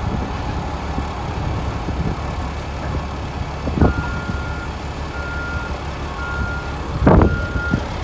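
Truck engine running steadily, with a backup alarm beeping about once a second from about four seconds in. Two short knocks, the louder one about seven seconds in.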